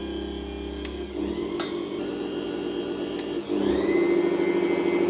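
Bosch MUM 5 1000 W stand mixer's motor spinning the blender attachment, running steadily. A little over three seconds in it dips briefly, then picks up speed and runs louder and higher.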